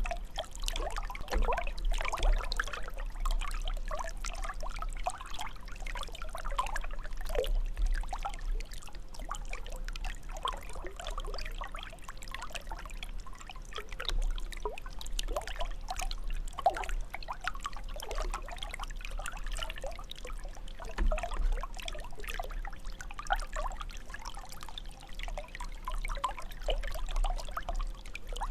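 Water jet of a fountain falling and splashing into its basin, a continuous irregular trickling and splashing.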